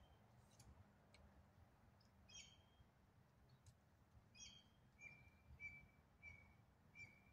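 Faint wild birds calling: a few short calls, then a run of four short notes at one steady pitch near the end.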